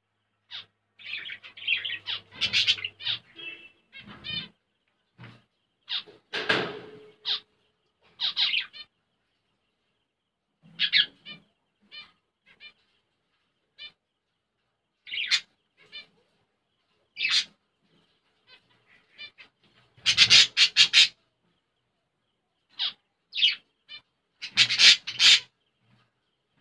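Finch nestlings chirping in short bursts of rapid, high notes separated by silent pauses, the loudest bursts about twenty and twenty-five seconds in.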